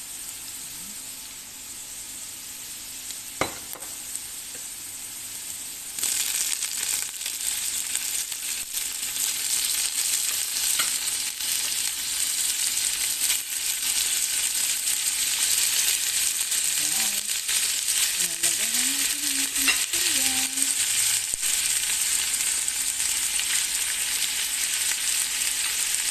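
Chicken breast frying in hot olive oil with onions in a pan. The sizzle is softer at first, jumps sharply louder about six seconds in as the chicken goes into the oil, then keeps up a steady frying hiss with small clicks of stirring.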